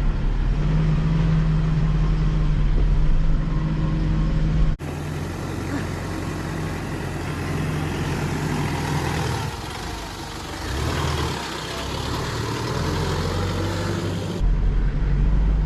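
Mitsubishi L200 Triton pickup's engine pulling slowly in first gear, low range, four-wheel drive, as the truck crawls up a steep dirt hill over a rock ledge. About five seconds in, the sound changes abruptly to a noisier, hissier engine-and-tyre sound, and it switches back near the end.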